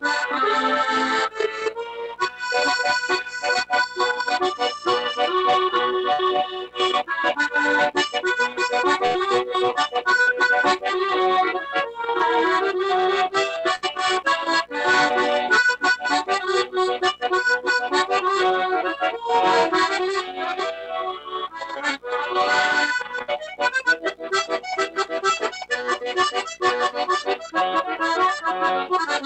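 Accordion playing a tune, many notes in quick succession over a steady rhythm.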